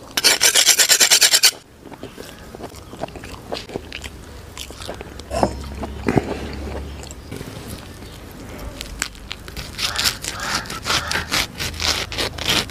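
A kitchen knife and a curved blade rubbed rapidly against each other to hone the edge: a loud, fast run of metal scraping strokes lasting about a second and a half. From about ten seconds in come wet bites and chewing as raw meat is torn off the bone.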